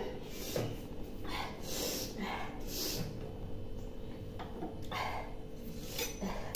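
A woman's string of short, sharp sniffs and breaths, her nose and throat irritated by the fumes of burning chillies.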